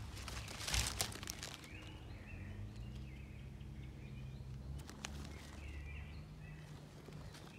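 Woodland ambience: small birds calling in two short bursts of chirps, with a brief rustle of leaves about a second in and a low steady hum underneath.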